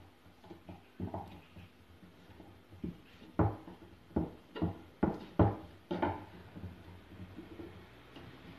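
Kitchen knife cutting a block of cheese into cubes on a wooden cutting board: a string of irregular knocks of the blade on the wood, the sharpest ones bunched together around the middle.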